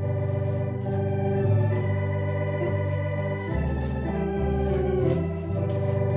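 Organ playing the introduction to a hymn, held chords with a strong bass line that change every second or so.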